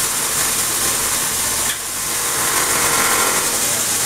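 Small handheld electric power tool running steadily, with a brief dip about two seconds in.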